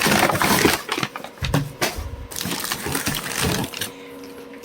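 Packing material crinkling and rustling in irregular bursts as the parts are unwrapped and lifted out of a shipping box.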